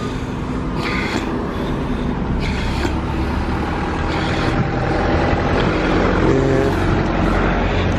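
Car engine and road noise: a steady low rumble, with a few brief rustles or knocks about a second in and near three seconds.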